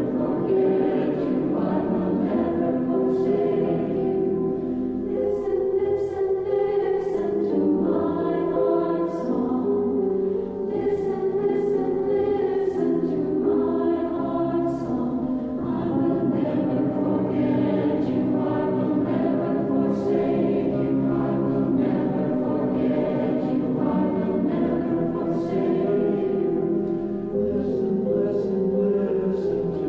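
A church choir singing a liturgical song in held notes, with crisp consonants.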